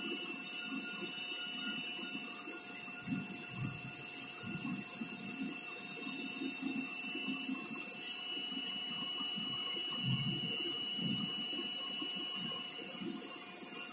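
Retrofitted CNC mill running a job: a steady hiss with a few constant whining tones and an uneven low rumble underneath.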